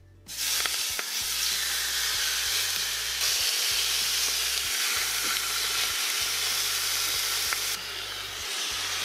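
Marinated chicken pieces sizzling as they are laid into the hot stainless-steel insert of an Instant Pot Aura Pro multi-cooker on its sear setting. The sizzle starts suddenly as the first piece goes in and holds steady, easing a little near the end.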